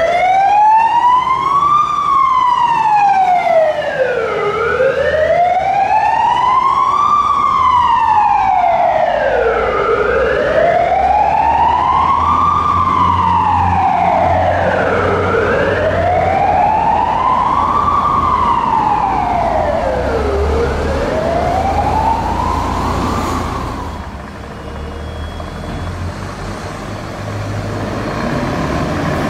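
Fire truck siren wailing, sweeping slowly up and down about once every five seconds. It fades out about 23 seconds in, leaving a low truck engine rumble.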